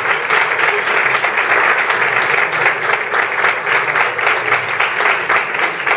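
Audience applauding: many hands clapping in a dense, steady patter that neither builds nor fades.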